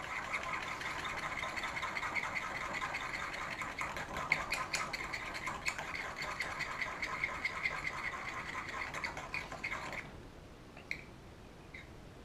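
Small pot of black model paint being stirred briskly, a rapid continuous scraping that stops suddenly about ten seconds in, followed by a couple of faint clicks.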